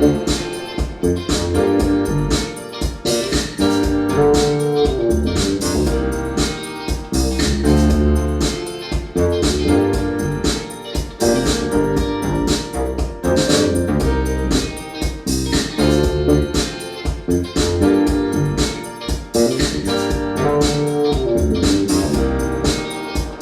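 Music with keyboards and a steady beat, played back through SABA 1300 Professional vintage hi-fi loudspeakers.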